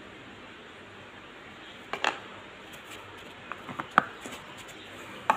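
Steady room hiss with a few light clicks and taps of handling: a pair about two seconds in, a cluster around four seconds, and one more at the very end.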